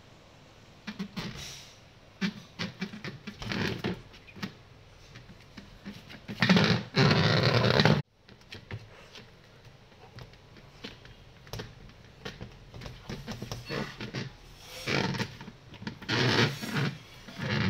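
Cocker spaniel puppy rummaging and nosing around a plastic stool on a tile floor: scattered scrapes, knocks and clicks. About six seconds in there is a loud rough scraping that cuts off suddenly, and more scuffling near the end.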